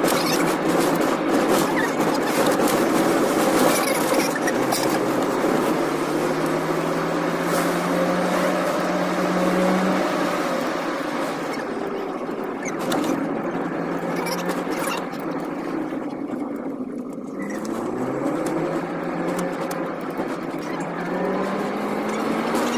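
Car engine running on the move, heard from inside the cabin along with road noise; the engine's pitch holds steady, then rises twice as it accelerates in the second half.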